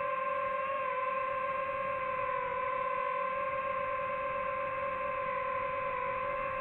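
DJI FPV drone's motors and propellers whining at a nearly steady pitch in flight, the pitch dipping slightly a few times as the throttle shifts.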